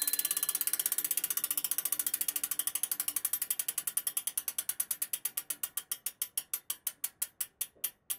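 Bicycle freewheel hub ticking as a spun wheel coasts down. The pawls click quickly at first, then more and more slowly as the wheel loses speed.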